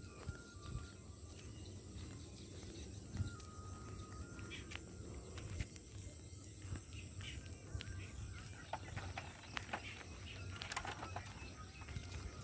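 Rural field ambience: a steady high-pitched insect drone, like crickets, with a few faint bird whistles, scattered light clicks and a low rumble underneath.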